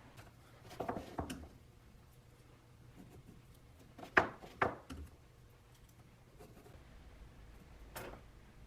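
A few scattered light knocks and clicks from small objects being handled: a short cluster about a second in, the two loudest, close together, about four seconds in, and one more near the end.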